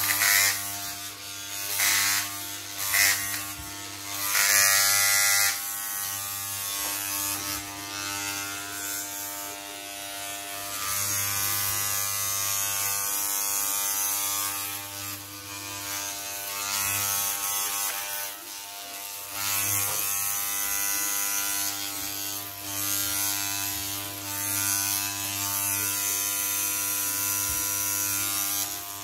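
Corded electric hair clippers running with a steady buzz while cutting short hair. Louder, rasping passes come and go every second or two as the blades are run through the hair.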